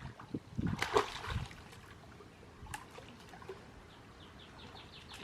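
Pool water splashing and trickling lightly, with a short cluster of splashes about a second in.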